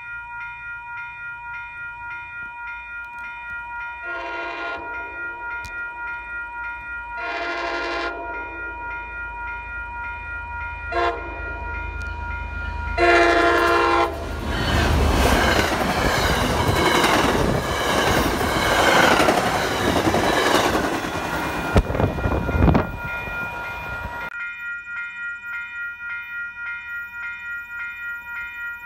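Railroad grade-crossing bells ringing in a steady rhythm while an MBTA commuter rail diesel locomotive blows its horn in the long–long–short–long crossing signal. The train then passes with a loud rush of engine and wheels clacking over the rail joints for about ten seconds, and the crossing bells keep ringing after it has gone.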